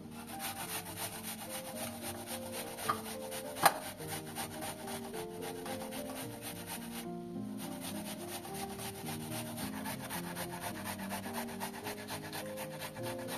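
Red onion being grated on a stainless-steel box grater: a quick run of rasping strokes, with a short pause about seven seconds in and a sharp click just before four seconds in. Background music plays underneath.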